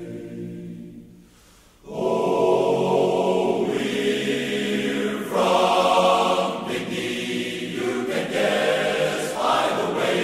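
Large men's chorus singing: a held chord fades away, and after a short break about two seconds in, the singing comes back in loud with changing chords.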